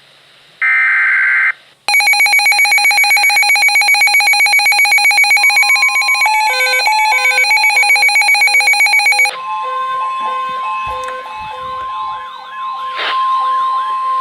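Emergency Alert System broadcast alert tones. The last screeching burst of the digital SAME header ends just under two seconds in. A loud pulsing electronic attention tone follows and steps through a few notes, then from about nine seconds in a steady single-pitch weather-radio alert tone sounds with a rising-and-falling warble over it.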